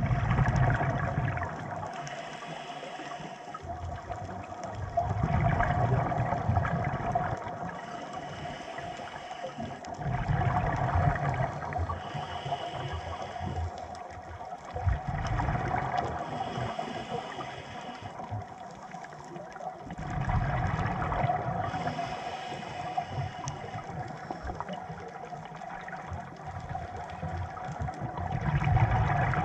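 Scuba regulator breathing heard underwater: bubbling, rushing surges of exhaled air that swell and fade about every five seconds, over a steady faint hum.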